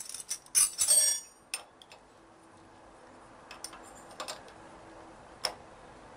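Metal hand tools clinking and clattering in a quick flurry during the first second and a half, then a few isolated metallic taps.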